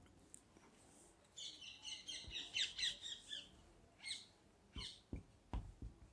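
Faint chirping of small birds: a quick run of high chirps starting about a second and a half in. A few soft clicks follow.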